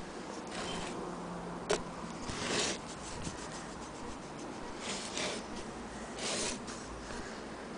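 Handling noise: four brief rubbing sounds and one sharp click about two seconds in.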